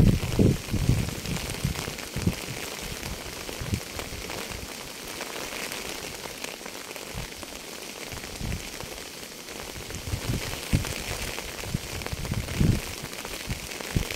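Steady rain falling, an even hiss, with irregular low thumps every second or two, the strongest right at the start.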